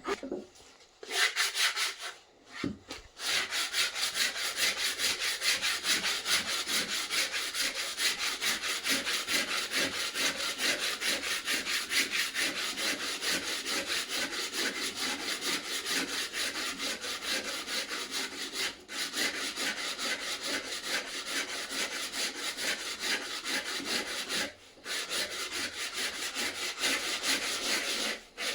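A hand tool scraped back and forth over wood in quick, even strokes, as when rasping, sawing or sanding a new axe handle. A few short strokes come first, then a long steady run that breaks off briefly twice.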